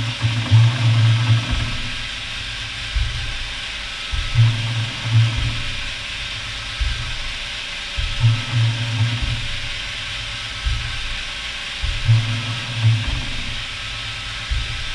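Haas SL-40 CNC lathe running under a steady hiss of coolant spray, with a low hum that swells for about a second roughly every four seconds.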